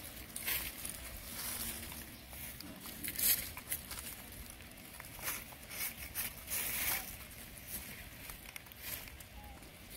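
Dry fallen leaves rustling and crackling in short, irregular bursts as macaques rummage and pick through them on a concrete step.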